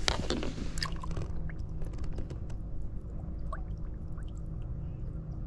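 Lake water splashing and dripping as a bass is lowered into the water by hand and released, busiest in the first second, then small drips and trickles. A steady low rumble runs underneath.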